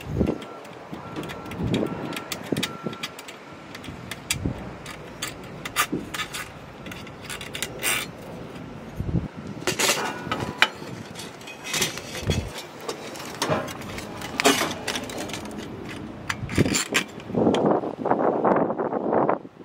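A metal chimney mounting bracket and small screws handled against a stainless-steel chimney pipe: scattered clicks, clinks and knocks, with a longer scraping rub near the end.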